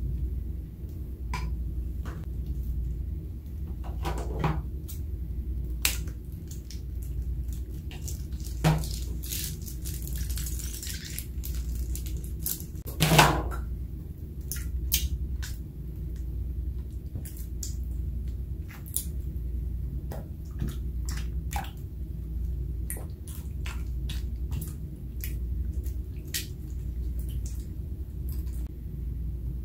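Silicone spatula stirring wet glitter slime in a glass baking dish: a string of small sticky, squelchy clicks and scrapes, with a few louder knocks against the glass, the loudest about 13 seconds in.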